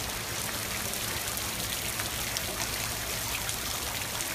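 Steady rain falling on floodwater: an even hiss with scattered faint drop ticks.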